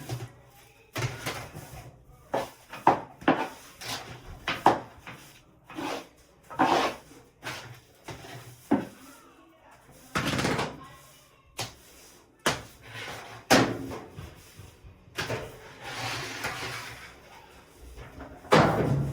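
Irregular work noises from handling dryer vent duct and fittings: a dozen or so short knocks and clatters mixed with rustling scrapes, with a longer scraping rustle about sixteen seconds in.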